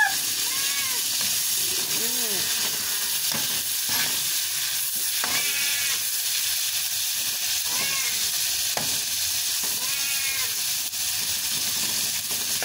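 Shrimp frying in hot oil in a wok: a steady sizzle while a spatula stirs them. Faint calls rise and fall in the background several times.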